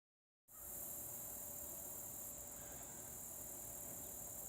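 A steady, high-pitched chorus of insects, typical of crickets, starting about half a second in.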